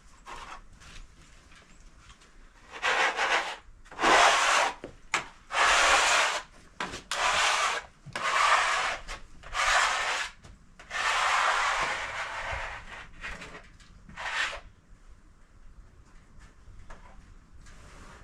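A series of about eight scraping strokes on wood, each lasting up to a second and a half, starting about three seconds in and stopping near fourteen and a half seconds, with no sawmill engine running.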